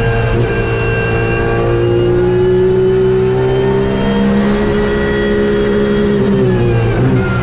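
Porsche 911 GT3 Cup (992) race car's naturally aspirated flat-six at high revs, heard from inside the cockpit, its pitch climbing gently and then holding. Near the end the pitch falls and breaks briefly as the car slows for a corner.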